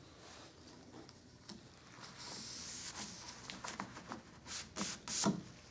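Sandpaper rubbing in short, intermittent scratchy strokes across a table saw's metal table top, with a few light knocks, the loudest about five seconds in.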